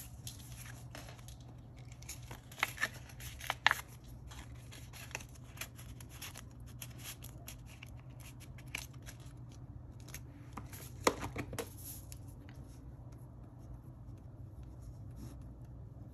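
Paper banknotes and a paper slip rustling and crinkling as cash is folded and wrapped by hand. A few sharper snaps and taps come about three seconds in and again around eleven seconds.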